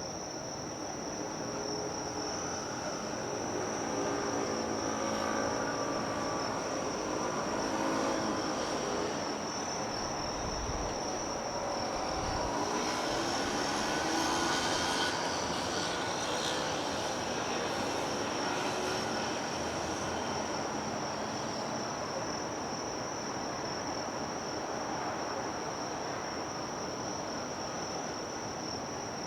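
Insects chirring steadily in one high tone. Under them, a low engine hum swells from a few seconds in and fades again after about twenty seconds, as a distant engine passes.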